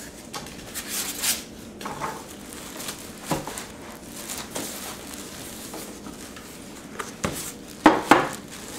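Plastic wrapping crinkling and cardboard rustling as a packaged pan is handled and lifted out of a shipping box, with a few sharp knocks, the loudest two close together near the end.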